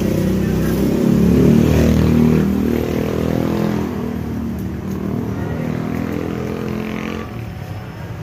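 Small motorcycle engines, including a motorcycle tricycle, passing close by, loudest a second or two in and then fading away.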